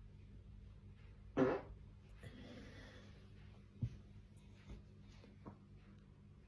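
A short, loud fart with a buzzing pitch about a second and a half in, followed by a softer hiss and a few faint knocks.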